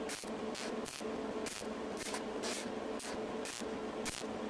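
Gas-shielded MIG welder with solid wire laying a weld on a stainless exhaust pipe and tip: a steady sizzling hiss that flares in short bursts about twice a second as the bead is stitched. The heat is turned down, so the weld runs smoothly instead of blowing holes.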